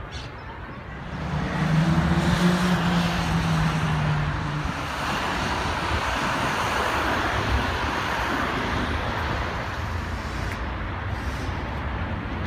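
City street traffic: a vehicle's engine drone rises about a second in and holds for a few seconds, over a steady wash of passing tyre and engine noise that gradually eases.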